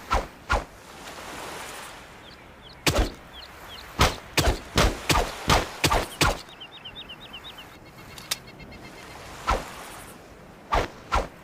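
Machete chopping: about a dozen sharp strikes, a quick run of them at two or three a second in the middle and the rest spaced out. Birds chirp briefly in the background twice.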